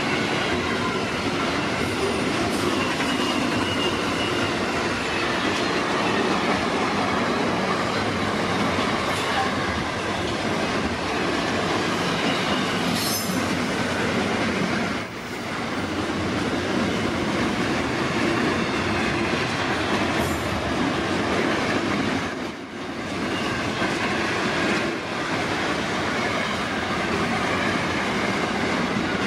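A freight train's wagons pass close by with a continuous loud rumble and rattle of steel wheels on rail, over a faint high-pitched wheel squeal. The noise dips briefly three times as it goes by.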